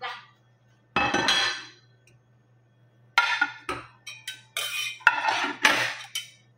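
A dish clattering down on the counter about a second in, then a metal utensil clinking and scraping repeatedly against a stainless steel pot as spinach and onion are tossed in it.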